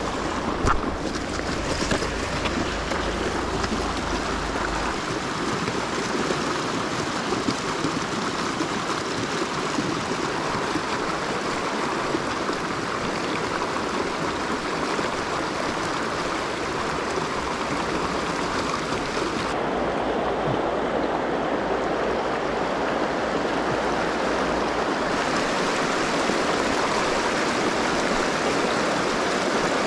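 Shallow, fast mountain river running over rocks and riffles: a steady rush of water, a little louder in the last few seconds. A few light knocks come in the first two seconds.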